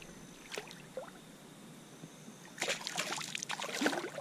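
Hooked bass thrashing and splashing at the water's surface beside the boat, a burst of splashing lasting about a second and a half from a little past halfway, with a few faint drips before it.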